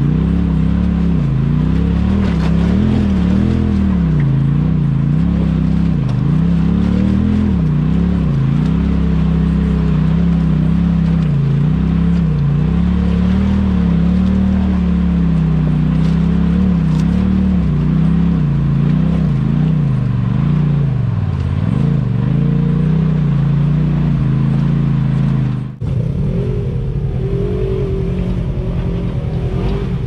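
Off-road vehicle engine under load, its revs rising and falling over and over. About 26 seconds in it cuts abruptly to a steadier engine sound with a light rattle.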